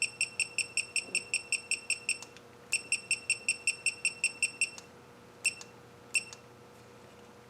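Electronic beeping from a digital torque wrench, a quick run of short high beeps about five a second, a pause, a second run, then two single beeps: the sign that the set torque of 19 ft-lb has been reached on the bolt.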